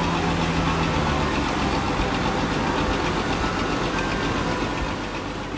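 Jet engines of a Boeing 737 airliner running loud and steady as it rolls along the runway, fading a little near the end.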